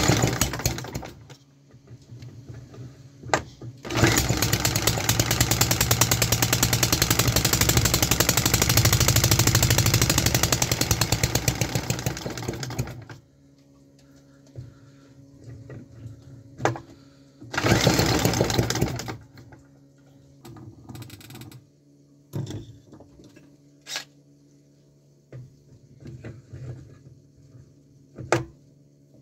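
Homemade 3D-printed plastic petrol engine running fast for about nine seconds, then cutting out. It fires again for a second or so a few seconds later. Between runs there are scattered clicks over a faint steady hum.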